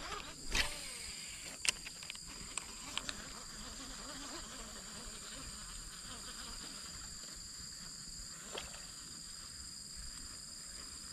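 Insects calling steadily in two high, even tones. A few sharp clicks and taps come in the first three seconds, and one more follows later.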